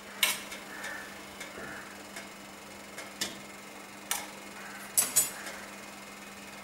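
A few scattered light clicks and knocks of steel kitchenware being handled around an idli steamer, two of them close together about five seconds in, over a faint steady low hum.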